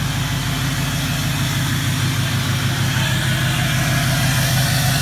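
Duramax V8 turbodiesel pickup engine idling steadily.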